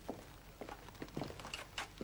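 Faint footsteps on a stone-tiled floor: a few soft, uneven taps.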